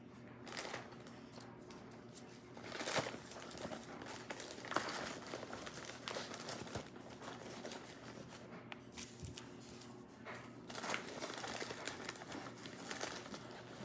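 A bag and firework packaging rustling and crinkling in irregular spells as fireworks are handled.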